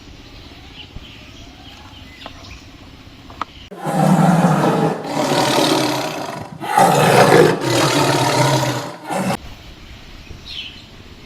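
Tiger roar sound effect: a run of loud, rough roars starting about four seconds in and lasting some five seconds.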